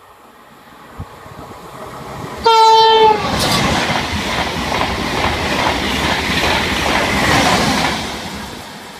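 TGV Duplex high-speed train sounding one short horn blast as it approaches, then rushing past at speed; the noise of the passing train fades away near the end.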